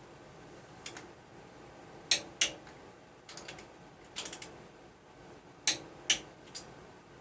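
Torque wrench and socket on cylinder head bolts: sharp metallic clicks and clinks in small groups, the loudest as two pairs about a third of a second apart, as the tightened head bolts are rechecked at their torque.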